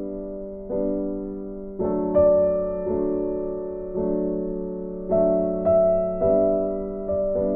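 Piano music: sustained chords, a new one struck about every second, each ringing and fading before the next.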